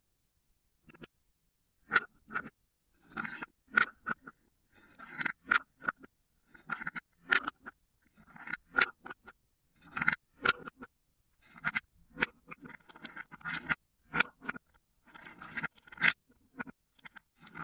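Small coloured balls scooped one at a time out of cups with a wooden spoon and tipped into a wooden bowl: repeated short clacks and scrapes, roughly one every second, as the scoop picks up each ball and the ball lands and knocks against the others in the bowl. The clacking starts about two seconds in.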